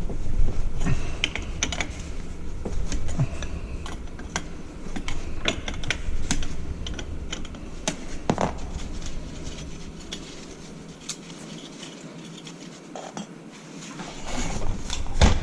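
Irregular metallic clinks, clicks and knocks of tools and metal parts being handled while a dry rotary-vane milking-machine vacuum pump is worked on, with a louder knock near the end.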